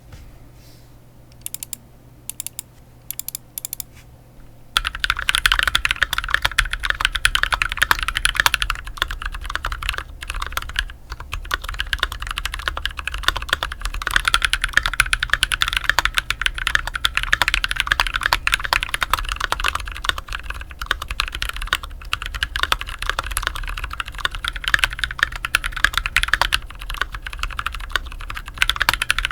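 Mechanical keyboard with lubed Holy Panda tactile switches, a brass plate and case foam, typed on. A few single keystrokes come first, then fast continuous typing starts about five seconds in.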